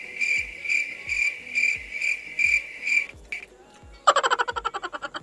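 Cricket chirping: a high, pulsing chirp about three times a second that cuts off suddenly about three seconds in, over background music with a steady low beat. About four seconds in, a loud, fast rattling croak starts.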